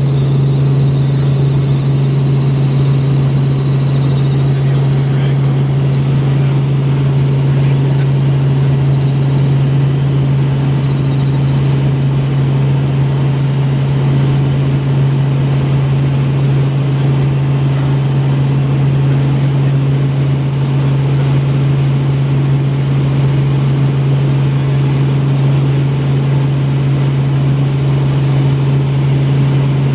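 Helicopter in flight: a steady drone of rotor and engine, with a thin high whine above it that steps a little higher in pitch about halfway through.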